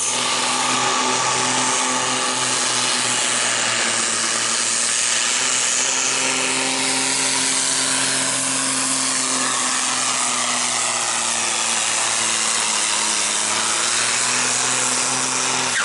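Diesel engine of an International tractor held at full throttle, pulling a sled down the track. The engine pitch holds steady with small dips.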